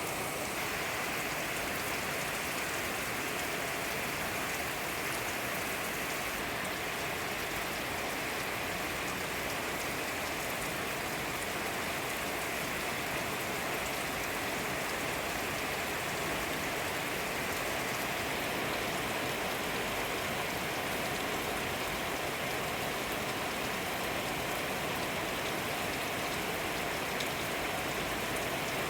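Steady rain falling, an even hiss of many fine drops with no let-up.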